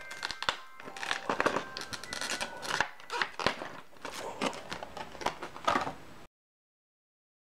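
Clear plastic blister packaging crinkling and crackling in irregular bursts as it is handled and pulled apart; it cuts off suddenly about six seconds in.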